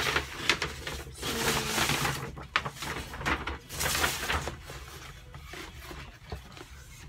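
Paper shopping bag rustling and crinkling as things are taken out, with knocks and scrapes from a cardboard shoebox being handled. The rustling comes in two spells in the first half and is fainter afterwards.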